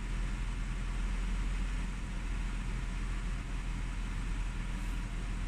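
Audi A6 2.8 CHVA V6 engine idling steadily shortly after a cold start. No ticking clearly stands out: this is before the cold-idle tick that the owner is chasing has fully set in.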